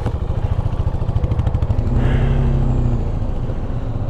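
Motorcycle engine running with a rapid low thudding beat as the bike rides along a rough, stony gravel track. About halfway through a steadier engine tone briefly comes in on top.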